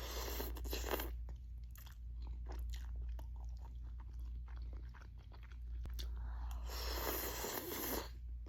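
A person eating ramen noodles close to the microphone: chewing with many quick, wet mouth clicks, and longer noisy stretches at the start and again near the end.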